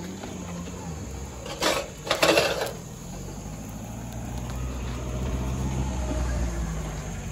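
A small SUV's engine running low and steady as it drives up, growing louder over the last few seconds. About two seconds in there is a brief, loud rustling clatter.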